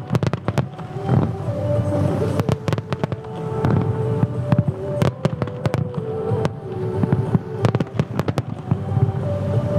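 Fireworks bursting in quick, irregular succession, many sharp bangs and crackles overlapping one another.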